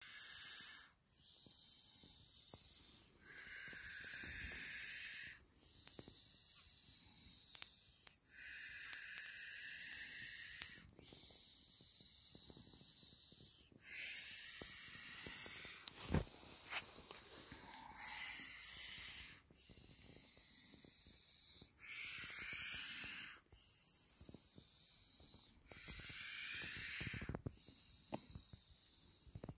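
European adder (Vipera berus) hissing over and over, a dozen or so hisses each lasting about two seconds with a short break between them: defensive hissing from an agitated snake. The last hiss, near the end, is softer.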